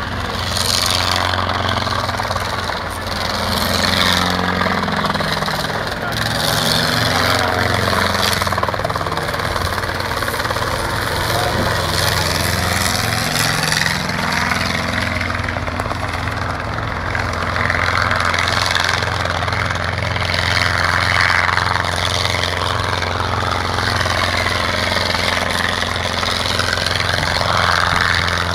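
Radio-controlled model helicopter running continuously as it flies stunts, its engine and rotor whine rising and falling in pitch over a steady low drone.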